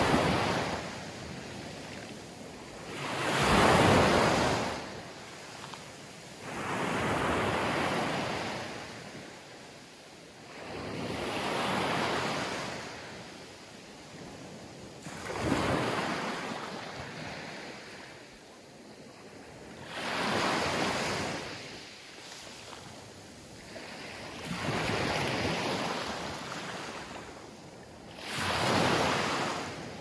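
Small Mediterranean waves breaking and washing up a shore of coarse sand and scattered pebbles, the surf swelling and fading about every four seconds.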